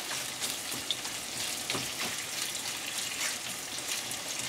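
Chicken pieces coated in cornstarch sizzling in hot olive oil in a skillet, a steady frying hiss with scattered small pops, as a spatula stirs and breaks up the pieces.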